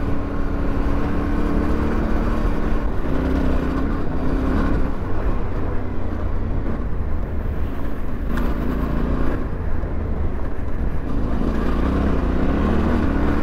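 Yamaha Ténéré 700's parallel-twin engine running steadily under way on a gravel track, its pitch shifting a little with the throttle, over rushing wind and tyre noise on the mount-camera microphone.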